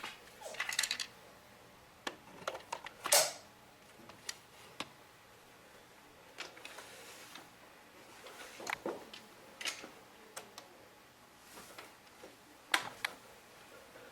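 Handling noises: scattered sharp clicks and a brief rattle, the loudest click about three seconds in, with no motor running.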